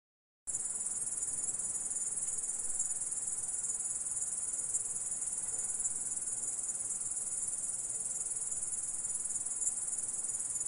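Grasshopper stridulating: a continuous high-pitched buzzing trill. It starts abruptly about half a second in and holds steady throughout.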